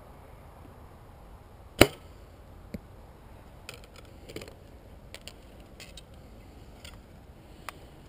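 A Bear Assault compound bow being shot: one loud, sharp crack of the string and limbs on release, with a fainter knock about a second later. Scattered light clicks and rattles follow as another arrow is handled at the bow quiver.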